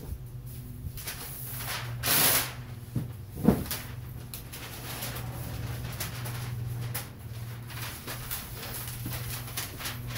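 Rummaging through garage shelves and a tool chest, with a brief rustling clatter about two seconds in, a sharp knock about a second later, and scattered small clicks of things being moved, over a steady low hum.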